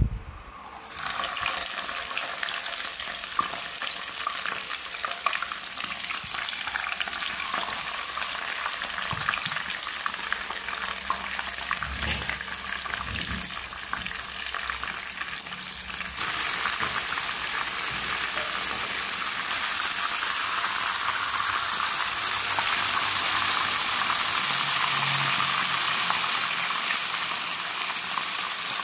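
Stuffed torpedo scad (cencaru) sizzling as it shallow-fries in hot oil in a wok. The sizzle starts about a second in as the fish goes into the oil and grows louder about halfway through.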